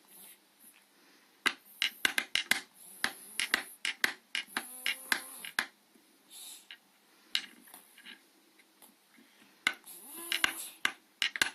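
Wooden bee toy clattering as a child bangs on it by hand, in two bursts of quick, irregular wooden knocks with a pause of a few seconds between them.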